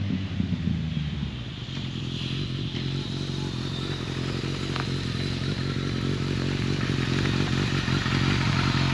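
2002 Kawasaki ZRX1200R's inline-four engine breathing through an ART Pro Series II slip-on exhaust. It winds down in the first second or so, then settles into a steady idle.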